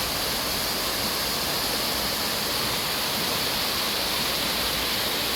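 River water rushing over a weir: a steady, even roar of white water.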